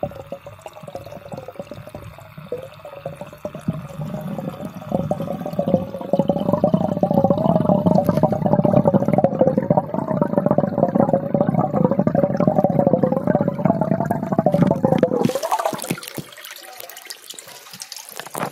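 Muffled water churning in an aquaponic fish tank, heard through a phone held underwater, with a wavering hum above it; it grows louder about five seconds in. Near the end the phone comes out of the water and the sound turns suddenly to a bright hiss of splashing water.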